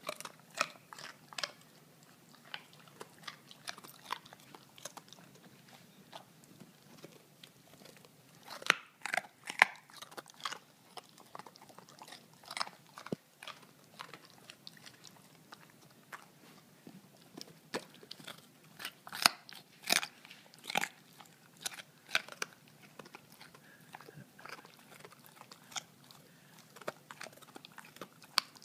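Giant schnauzer crunching and chewing raw carrot pieces: a run of sharp, irregular crunches, with the loudest bites about nine seconds in and again around twenty seconds in.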